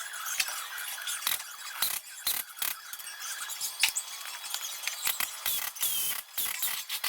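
Fast-forwarded workshop sounds of hand tools on car parts: rapid, high-pitched clicks, clinks and ratcheting.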